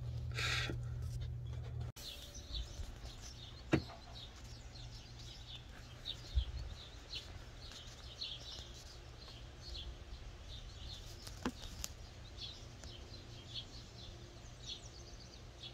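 A steady low hum cuts off abruptly about two seconds in, giving way to birds chirping and singing: many short, varied calls, with a couple of sharp clicks.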